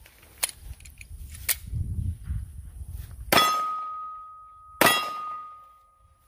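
A few metallic clicks of a pistol being handled, then two pistol shots about a second and a half apart. Each shot strikes a steel target, which rings on with a single lingering ding.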